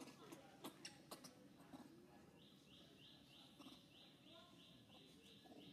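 Faint outdoor quiet: a few soft clicks, then from about two seconds in a faint high chirp repeating about three times a second.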